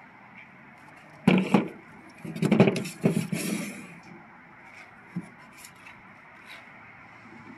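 Handling noise from Polk Audio speaker cabinets being turned over and set against the table and each other. A sharp knock comes about a second in, then a louder cluster of knocks and scraping around two to three and a half seconds, and a small tap near five seconds.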